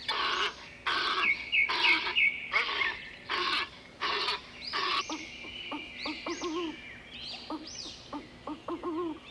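Walrus herd calling: a run of loud, harsh calls about every second or less. About five seconds in they give way to softer, short, low owl calls, with high bird chirps throughout.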